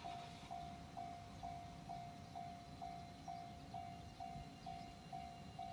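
Japanese railway level-crossing warning bell ringing: a single electronic ding repeated evenly, a little over twice a second.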